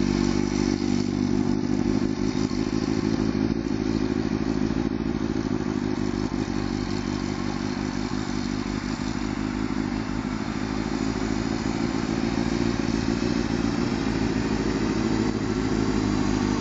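Motorcycle engine running steadily at low speed, its pitch holding level with no hard revving. The sound fades a little in the middle as the bike moves away and grows louder near the end as it comes back close.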